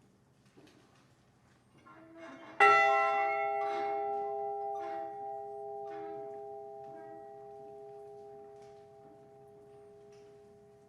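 The Edmund Fitzgerald's recovered bronze ship's bell struck once, tolling for one lost crewman. The stroke lands about two and a half seconds in and rings on in a few clear, steady tones that fade slowly.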